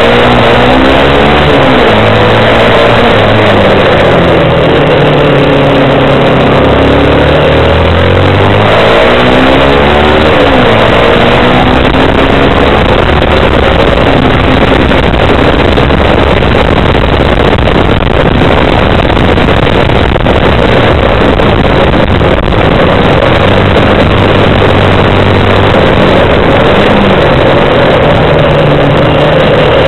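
Kymco Quannon 125 motorcycle's single-cylinder four-stroke engine running under way. Its pitch rises and falls several times as it accelerates and shifts, under loud wind and road noise on the onboard microphone.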